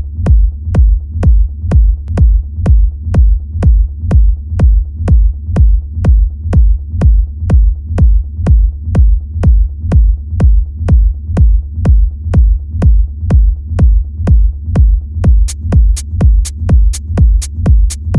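Electronic dance track opening with a bare four-on-the-floor drum machine kick, about two beats a second, each hit topped with a short click. Brighter hi-hat ticks join about fifteen seconds in.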